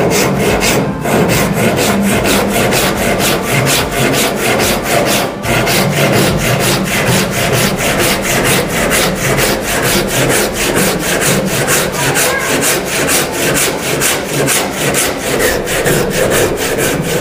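A freshly sharpened and set hand saw cutting across a wooden plank in quick, even back-and-forth strokes, with a brief break in the rhythm about five seconds in.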